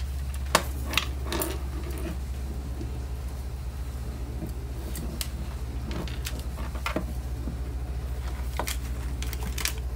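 Scattered clicks and knocks of a plastic pistol crossbow being handled and fitted together, over a steady low hum.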